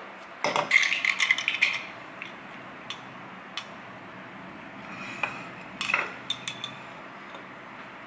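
Kitchen clatter of glassware and dishes being handled: a quick flurry of clinks and knocks about half a second in, then scattered single clicks and taps.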